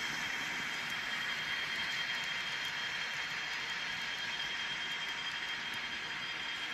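N scale model freight train rolling past on the track: a steady mechanical whir of wheels and motor, with a thin, steady high-pitched whine.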